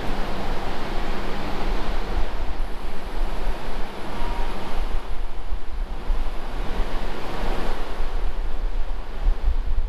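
Steady rushing noise with a constant low hum from the amplifier test bench while a pair of strapped amplifiers is driven on an amp dyno.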